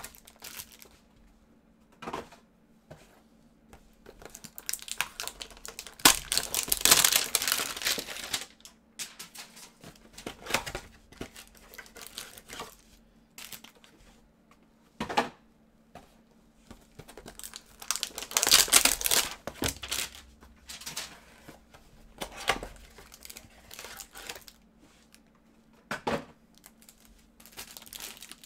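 Cardboard hanger boxes of 2019-20 Panini Prizm Basketball cards being torn open and handled, with packaging crinkling. There are two longer tearing spells, about six and eighteen seconds in, and short sharp rips between them.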